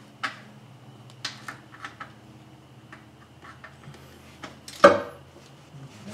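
Scattered metallic clicks and clinks of a hand wrench and socket working a bolt in an engine bay, with one sharper clank just before five seconds in.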